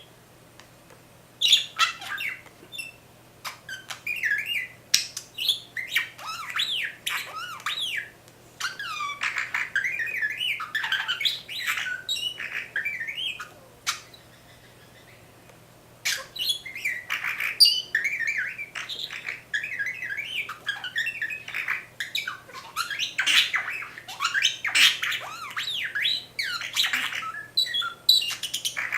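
Pet budgerigar chattering in quick up-and-down whistles, squeaks and beeps that sound like R2-D2. It starts about a second and a half in, pauses for about two seconds around the middle, then carries on.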